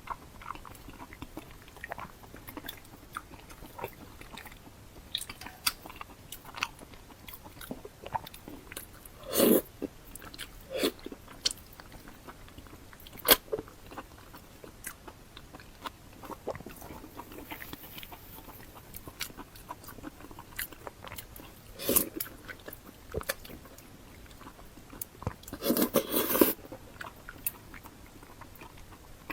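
Close-miked eating: a pig's ear being bitten and chewed, its cartilage crunching in many short sharp snaps. Louder bites come about 9 s in, at 13 s, at 22 s, and in a longer run near the end.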